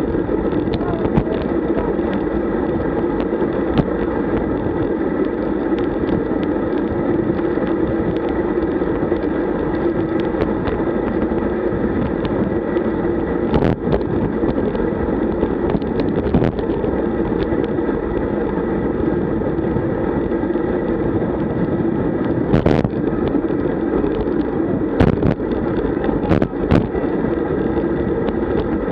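Steady wind rush and road noise on a bike-mounted camera's microphone as a road bike rolls at about 40 km/h, with a few sharp knocks from bumps, more of them in the last few seconds.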